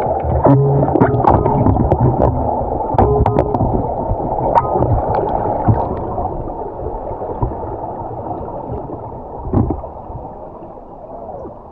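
Underwater gurgling and bubbling from scuba divers' regulators and exhaled air, with scattered small clicks; it dies down over the last few seconds.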